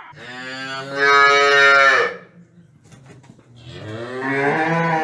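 Cattle mooing: two long moos, the first lasting about two seconds and the second starting about three and a half seconds in, growing louder toward its end.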